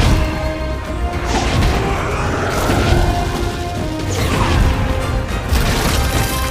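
Film soundtrack: orchestral score with action sound effects, whooshes and heavy crashing impacts. Two falling whooshes come near the start and about four seconds in.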